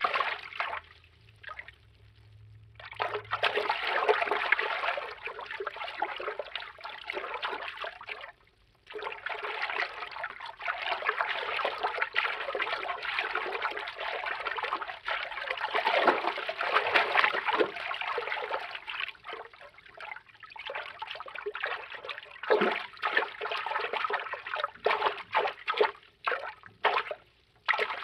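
Cartoon water-movement sound effects: a noisy, watery swish in stretches of several seconds, with brief drop-outs about one to three seconds in, around nine seconds and shortly before the end.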